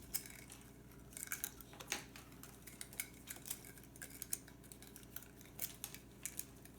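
Light, irregular clicks and small scrapes of plastic parts being handled and turned, as an underwater camera housing is screwed together by hand.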